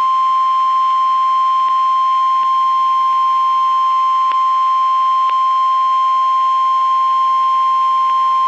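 NOAA Weather Radio 1050 Hz warning alarm tone: one loud, steady, single-pitched beep held unbroken over a faint hiss. It is the attention signal that comes before a National Weather Service warning broadcast, here a severe thunderstorm warning.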